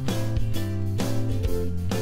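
Background music: strummed guitar chords in a steady rhythm, about two strokes a second.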